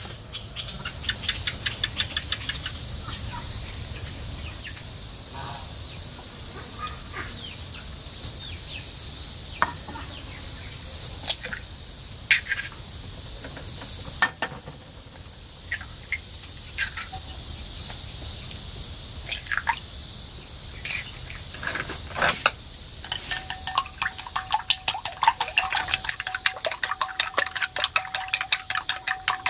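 Kitchen prep: scattered clinks and knocks of eggs and dishes being handled. In the last six seconds or so, chopsticks beat eggs in a ceramic bowl with rapid clicking, several strokes a second, and the bowl rings faintly. A steady high hum of insects runs underneath.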